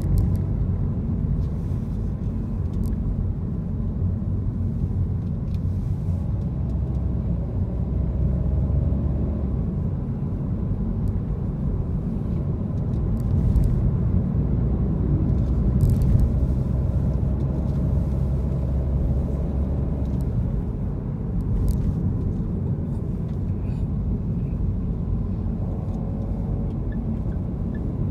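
Steady low road and engine rumble of a car driving in city traffic, heard from inside the cabin, with a few faint clicks scattered through it.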